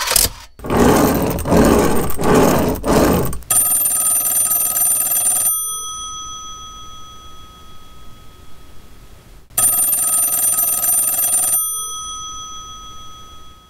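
A tin toy coin register bank rattles mechanically for about three seconds under a hand working its key. Then a black rotary-dial wall telephone's bell rings twice, each ring about two seconds long with a pause of about four seconds between, the bell dying away slowly after each ring.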